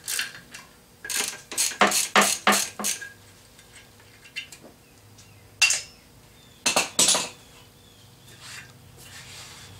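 Metal clinks of wrenches and nuts on the cylinder studs as the studs are tightened with two locked nuts: a quick run of about six clinks between one and three seconds in, then a few more spaced clinks around five to seven seconds in.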